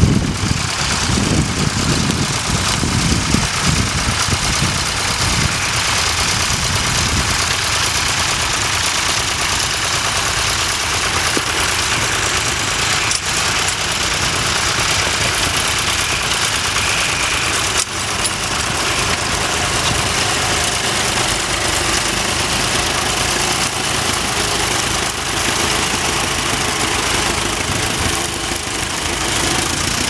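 Fordson Model N tractor's engine running steadily under load as it pulls a plough through stubble.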